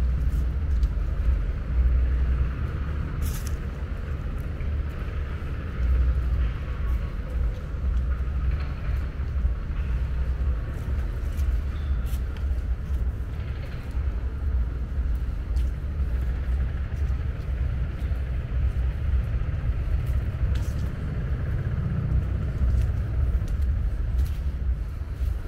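Steady low rumble of distant road traffic with a hiss of tyre noise, and faint clicks scattered throughout.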